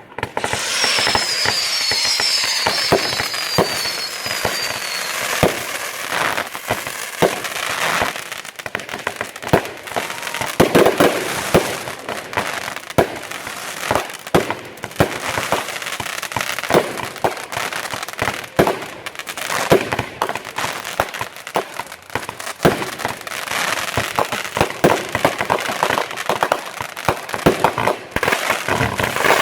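Fireworks display: many aerial shells bursting in quick succession, sharp bangs over a steady crackle, with a falling whistle in the first few seconds.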